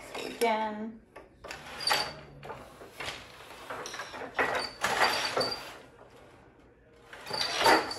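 Wooden floor loom in use: a boat shuttle sliding through the open shed and wooden knocks of the beater and shafts, in several short bursts.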